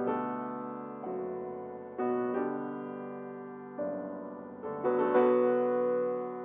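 Grand piano played solo: slow, sustained chords, a new one struck every second or two and left to ring and fade.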